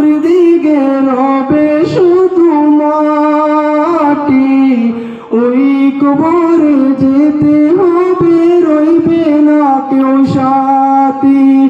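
A male voice singing a Bengali naat unaccompanied, in long held notes that waver and turn, with a short breath about five seconds in.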